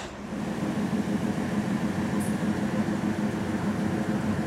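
Diesel shunting locomotive's engine running as it approaches, a steady low drone that comes up just after the start.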